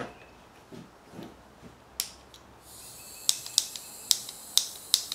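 Small gas torch's igniter clicking over and over, two to three clicks a second from about three seconds in, over a faint hiss of gas: the old torch is slow to light.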